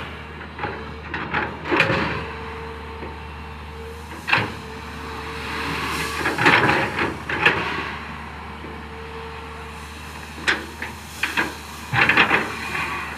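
Komatsu PC200 long-reach excavator's diesel engine running steadily while its bucket digs into a pile of crushed stone, with repeated bursts of gravel scraping and rattling: briefly about 2 s and 4 s in, longer around 6–7 s, and again near the end.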